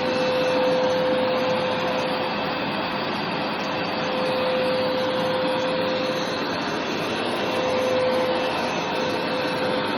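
Hoover carpet-cleaning machine running steadily, a motor whine with a hum that fades and returns and a level that swells and dips a little every few seconds.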